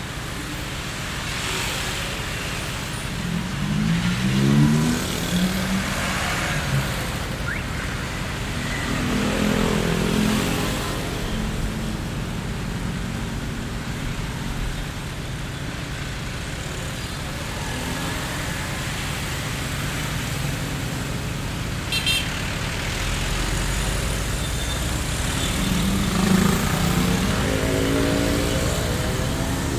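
Street traffic ambience: a steady low rumble of road traffic, with cars passing and engines rising and falling in pitch three times. There is a brief sharp click about two-thirds of the way through.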